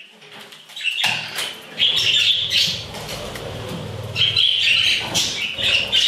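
Budgies flapping their wings and chirping, a loud fluttering starting about a second in.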